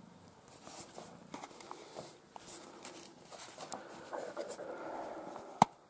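Faint scattered rustling and light ticking, with one sharp click near the end.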